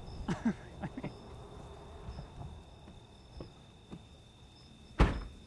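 Night insects chirping steadily, a thin high tone with a repeating chirp above it. About five seconds in there is one loud, sudden thump.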